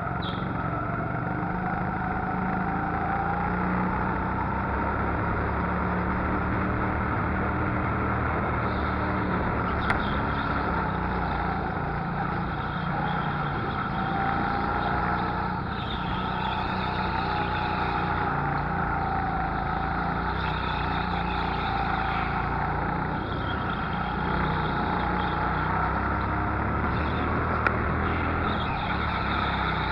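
Go-kart engine running under load through a lap, its pitch rising and falling as the throttle opens and lifts through the corners. A brief sharp tick about ten seconds in and another near the end.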